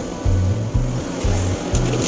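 Background music with a steady, pulsing bass beat.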